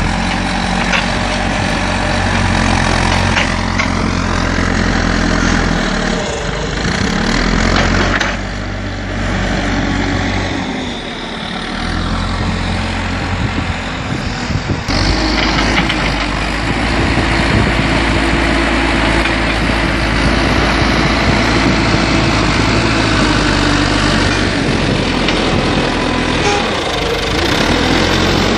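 JCB backhoe loader's diesel engine running under working load while its front bucket carries soil and tips it into a trench. The engine note dips for a few seconds near the middle, then runs louder and steadier.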